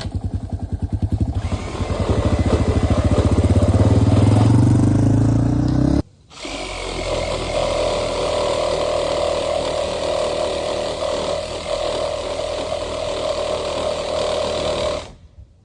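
A power saw cutting through the tree house's wooden support pillars. Its motor pulses and climbs in pitch over the first few seconds, then runs steadily and stops near the end.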